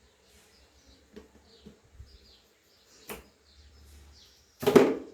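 Kitchen handling sounds: a sharp knock about three seconds in and a louder clunk near the end, with a few faint softer taps between them. Faint bird chirps are heard in the background.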